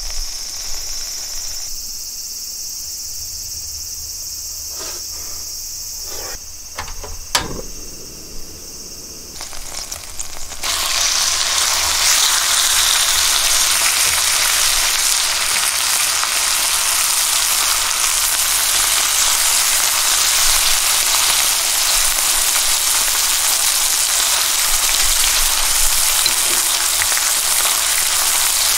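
Wagyu beef slices sizzling in melted beef fat in a hot iron pan. A quieter frying hiss with a few clicks, then about ten seconds in the sizzle jumps suddenly to a loud, steady hiss as raw meat is laid into the fat.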